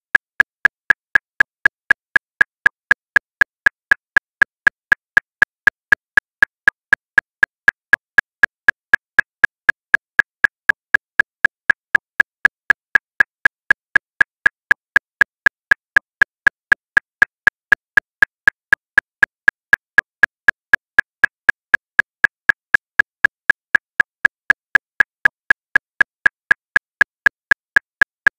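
Metronome clicking steadily at 239 beats per minute: about four short, identical clicks a second, with no accented beat.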